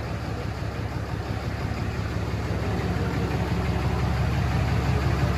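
Cummins 6.7-litre inline-six turbo-diesel of a 2012 Ram 2500 idling, a steady low rumble that grows slowly louder.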